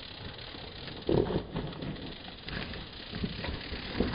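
Mountain bike coming down a steep, rooty dirt corner: tyres scrabbling on loose dirt, with irregular knocks and scrapes from the bike over the rough ground, the loudest about a second in and more of them as it passes close near the end.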